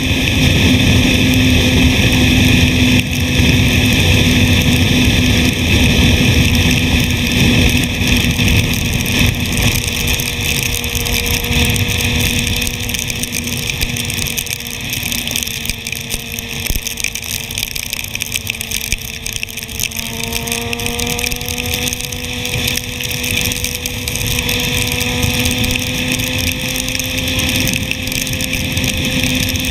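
Suzuki GSX-R1000's inline-four engine running at a steady cruise, heard from the rider's seat over wind and tyre hiss on a wet road. The engine note sags a little past the middle and climbs again from about two-thirds in.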